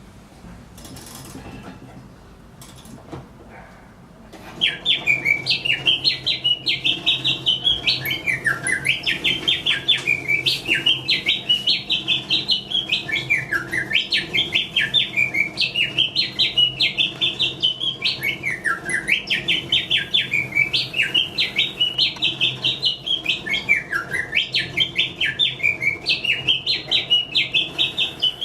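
Mechanical singing bird automaton whistling. After a few faint clicks, the song starts about four seconds in: rapid chirps sweeping up and down, the same phrase repeating about every five seconds, over a steady low hum.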